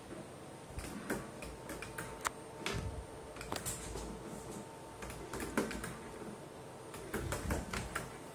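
'Back to the Features' fruit machine being played: irregular clicks from its push buttons and its reels spinning and stopping, over a faint steady tone from the machine.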